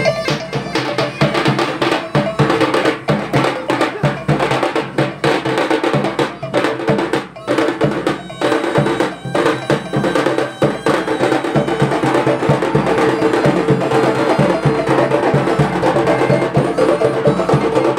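Traditional Minangkabau street music: a reed pipe holds a continuous, nasal melody over fast, dense strokes on a double-headed drum with sharp clicking hits.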